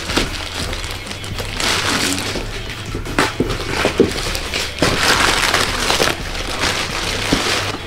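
Thick black plastic bag wrapping being cut with scissors and ripped off a cardboard box, with repeated crinkling and tearing and a few sharp snips, over background music.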